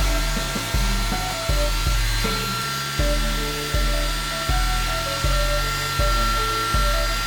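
Background music with a steady beat of notes about every three-quarters of a second, over a hair dryer's steady whine and rush of air.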